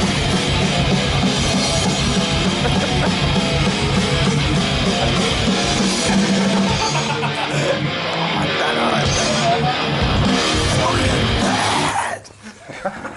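Thrash metal with electric guitars playing loudly, cutting off about twelve seconds in.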